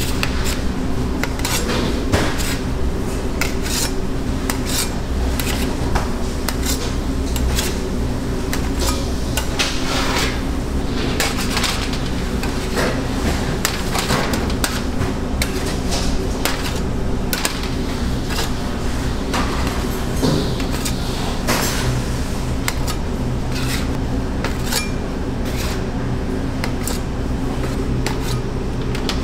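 Perforated aluminium baking trays clanking and clattering as they are handled, with frequent sharp metal knocks over a steady low hum of kitchen equipment.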